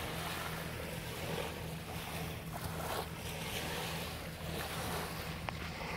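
Small waves washing and breaking on the shore in irregular surges, over a low steady hum.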